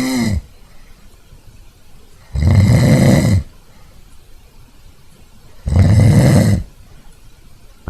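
A person snoring: one snore trails off just as it begins, then two full, rough snores follow, each about a second long and about three seconds apart, with quiet in between.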